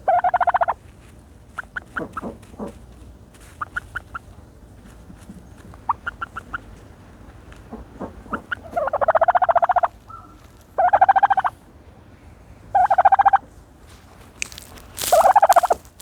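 Turkey gobbling five times, each gobble a short rattling burst, with softer short calls and clicks in between.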